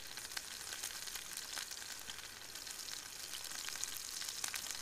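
Sirloin steaks searing in a hot frying pan: a steady sizzle with scattered spits and crackles.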